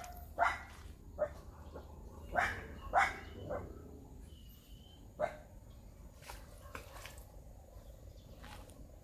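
A dog barking in short, separate barks, about six over the first five seconds, then it stops.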